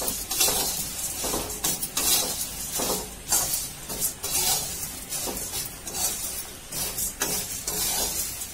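A spatula stirring and tossing a dry mix of puffed rice, peanuts and fox nuts in a metal kadhai: a rustling scrape against the pan, repeated about once a second.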